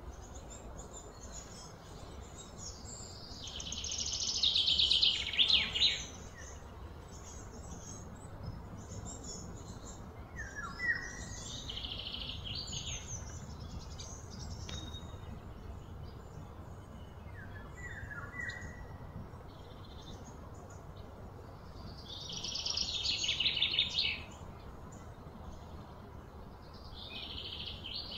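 Birds calling over a steady low background hum: a loud, rapid high trill a few seconds in and another about two-thirds through, with shorter trills and brief chirps between.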